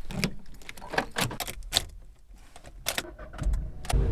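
A run of sharp clicks and knocks, then, about three and a half seconds in, the steady low rumble of a Volkswagen Polo being driven, heard from inside the cabin.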